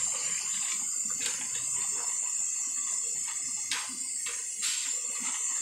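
Potato sticks frying in a wide wok of hot oil: a steady high hiss, with a few short scraping strokes from the metal spatula stirring them.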